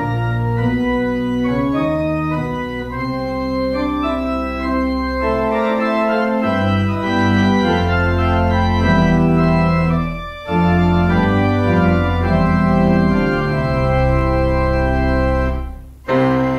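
Church organ playing a hymn in sustained full chords that change every second or so, with short breaks between phrases about ten seconds in and again near the end.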